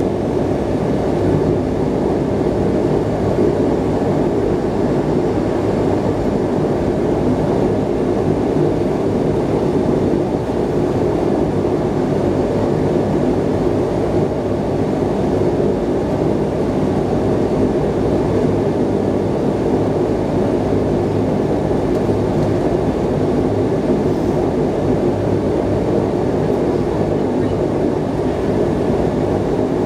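De Havilland Canada Dash 8-100's turboprop engines and propellers droning steadily, heard from inside the passenger cabin.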